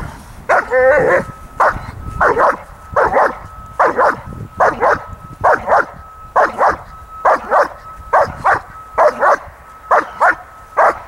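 A young German Shepherd barking at an agitating helper in protection training: rhythmic barks about one a second, often in quick pairs, with a high whining yelp about a second in.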